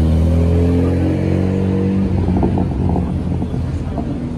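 A Renault Mégane hatchback drives past close by, its engine note loud and dropping slightly in pitch as it goes by. About two seconds in, an Alfa Romeo RZ follows past with a rapid, pulsing engine sound.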